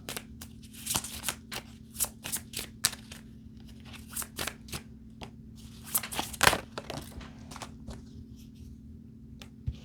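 Tarot or oracle cards being shuffled and handled: irregular light card snaps and rustles, thinning out over the last few seconds.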